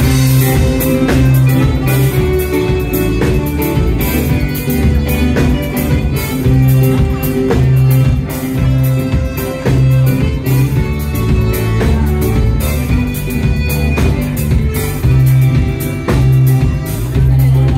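Live band playing an instrumental passage: a bass line under a steady drum beat, with guitar, and no singing.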